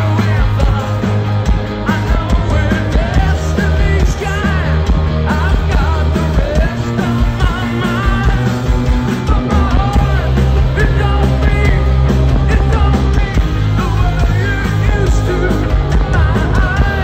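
Live rock band playing loud through a concert sound system: drums, bass guitar and a male lead vocal singing over the band.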